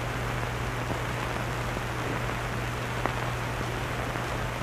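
Steady hiss with a constant low hum, the background noise of an old film soundtrack, with a single faint click about three seconds in.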